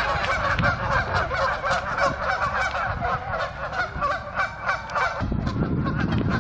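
A flock of Canada geese honking, many calls overlapping without pause, over a low steady rumble.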